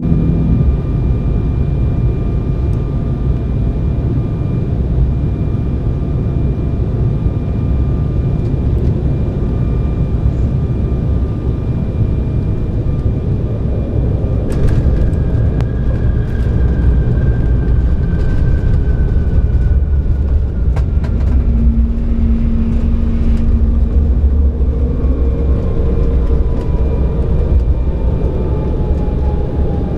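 Cabin noise of an Embraer ERJ-195LR jet landing: a loud steady rumble of airflow and engines, with a few knocks about halfway through as the wheels touch down. After that come whines falling slowly in pitch as the engines spool down on the rollout.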